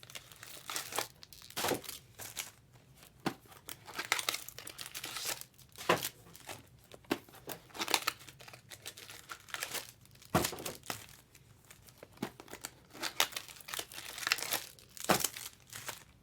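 Trading card pack wrappers being torn open and crinkled, with irregular crackling and rustling as packs of 2023 Bowman Chrome baseball cards are ripped and handled.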